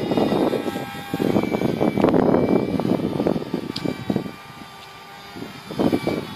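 Electric motor and propeller of a small scratchbuilt UMX Safari RC model plane, buzzing as it flies overhead, with faint steady whine tones over gusting wind noise on the microphone. The sound drops away for a moment about two thirds of the way through.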